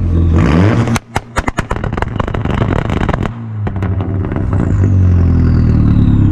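Turbocharged 1.8T four-cylinder engine of a VW MK4 Jetta revving hard. About a second in comes a quick run of sharp cracks lasting two seconds or so. Then the revs climb again, with a high whistle falling in pitch near the end.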